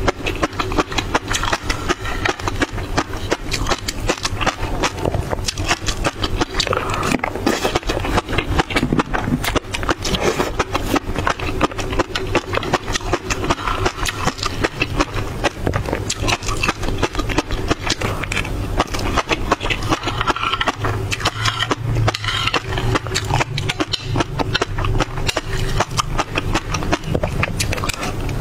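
Close-miked chewing of mouthfuls of fish roe, the small eggs popping in a dense, continuous run of tiny clicks, with a metal spoon scraping roe across the plate.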